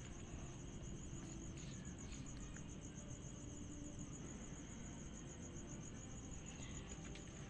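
A cricket chirping steadily, a fast even pulse of high-pitched chirps, over a low rumble of background noise.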